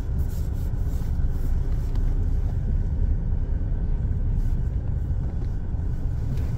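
Low, steady rumble of a running car heard from inside its cabin.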